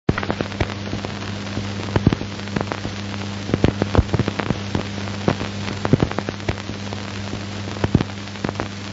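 Surface noise of an old optical film soundtrack: irregular crackles and pops over a steady low hum and hiss, with no music or speech yet.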